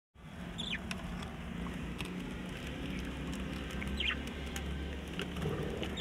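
Budgerigars giving a few short falling chirps, about three in all, over scattered light clicks and scratches. A steady low hum runs underneath.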